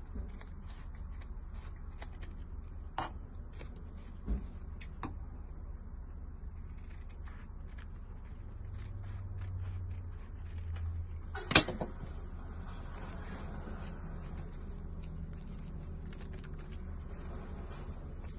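Scissors cutting through a black three-ply disposable face mask: a run of small crisp snips and rustles of the fabric, with one sharp, louder click about twelve seconds in, over a steady low hum.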